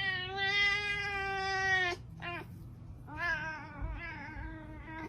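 Domestic cat giving long, drawn-out meows: one held call that stops about two seconds in, a short chirp-like meow, then another long wavering yowl.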